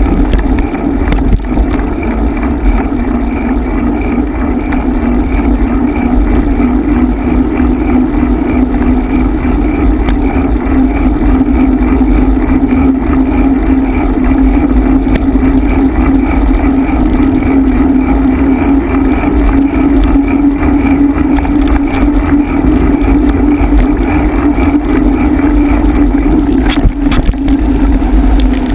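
Steady rush of wind and rolling mountain-bike noise on a dirt track, picked up by a camera mounted on the moving bike or rider, with a constant low rumble. A couple of sharp knocks near the end.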